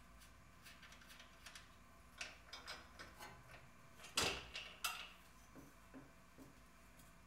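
Wrench work on the bolts holding a tacked steel tube mount under a car: scattered light metal clicks and ticks, with a louder clank about four seconds in and another a little under a second later.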